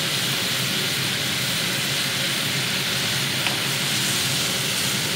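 Sliced mushrooms, cucumber and carrots frying in a pan, a steady sizzling hiss with a low hum underneath and one light click about three and a half seconds in.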